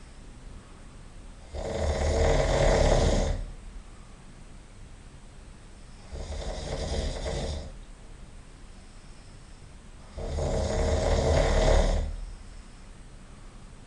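A man snoring loudly in a slow rhythm: three long snores about four seconds apart, the middle one softer, with quieter breathing between them.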